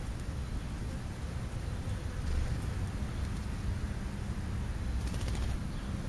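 Steady low outdoor rumble, with a short run of faint, rapid high chirps or clicks from a bird about five seconds in.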